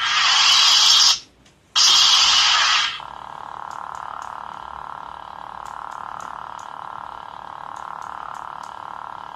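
Lightsaber sound-card effects from a small speaker: a loud crackling blade sound that cuts off about a second in, half a second of silence, then a second loud burst that settles into the blade's steady idle hum.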